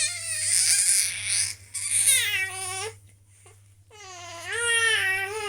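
Baby close to four months old making loud, high-pitched cry-like squeals, three in a row, the second falling in pitch.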